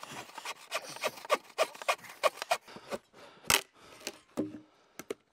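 Hand bow saw cutting through a log in quick back-and-forth strokes, several a second, slowing to a few spaced strokes in the last two seconds. The owner blames the saw itself for cutting poorly.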